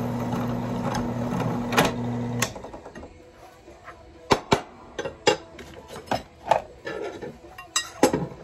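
Benchtop drill press motor humming steadily as a hole is drilled through a high-carbon steel knife blank, switched off about two and a half seconds in. After it stops come scattered sharp metal clicks and knocks as the blade is handled on the drill press table.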